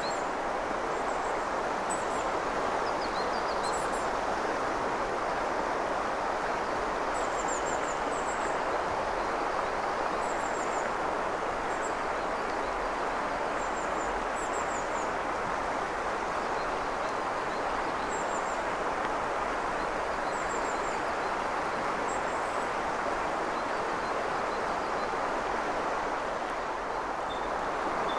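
Steady rush of a shallow mountain river flowing over stones. Above it, high, thin bird calls in short falling notes repeat every second or two, thinning out near the end.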